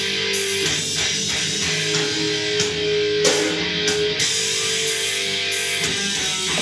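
Rock song with electric guitar played back through a Marshall Stockwell II portable Bluetooth speaker.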